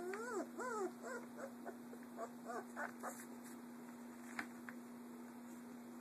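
Young puppies about three weeks old whining: a run of high calls that rise and fall, loudest in the first second and getting weaker until about three seconds in. A steady low hum runs under them.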